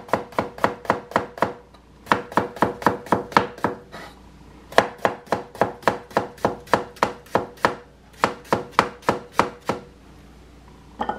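Chef's knife slicing a cucumber on a cutting board: quick, even taps of the blade on the board, about six a second, in four runs with short pauses between, stopping near the end.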